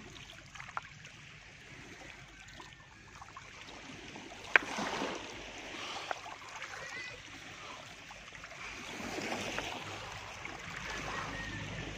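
Shallow sea water lapping and swishing around a wader's legs, with a single sharp knock about four and a half seconds in.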